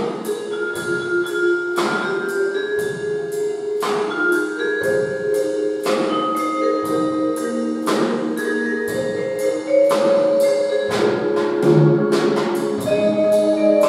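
Small percussion ensemble playing: a drum kit keeps a steady beat under marimba and other mallet percussion, with held pitched notes. A strong accent falls about every two seconds.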